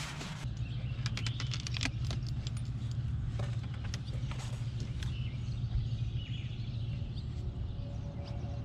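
Boat's canvas bimini top being folded down: its metal frame clicking and rattling and the fabric rustling, with most of the clicks in the first half. A steady low hum sits underneath throughout.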